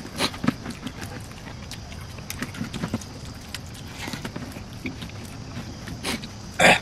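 Close-up eating sounds: fingers squishing and mixing rice and curry on a banana leaf, and wet chewing and lip smacks, as a scatter of small irregular clicks. A short, much louder noise comes near the end.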